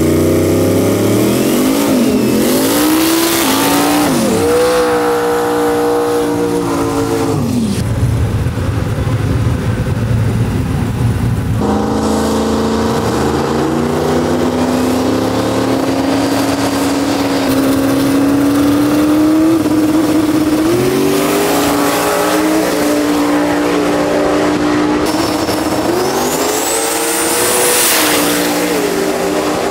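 Drag-race Mustangs at the starting line, engines running and being revved up and down several times. Near the end one car launches, its engine climbing in pitch at full throttle.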